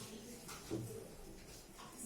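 Faint classroom background noise, with one brief soft sound a little under a second in.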